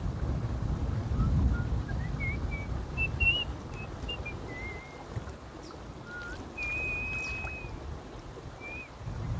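A person whistling a wandering tune of short notes, with one long held note about two-thirds of the way through. Wind rumbles on the microphone underneath, strongest in the first half.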